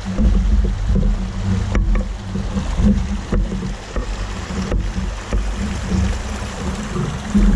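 Rocky mountain creek rushing over stones, under a heavy low rumble of wind and handling noise on the microphone, with a few brief dropouts in the sound.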